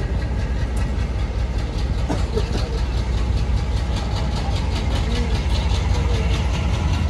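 ALCo-built WDM3D diesel locomotive chugging as it pulls a train away from a station: a steady low drone with a fast, even beat of engine exhaust over it.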